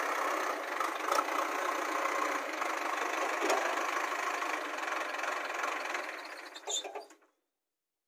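JCB 3DX backhoe loader's diesel engine running steadily, with a few light knocks. The sound fades and cuts off about seven seconds in.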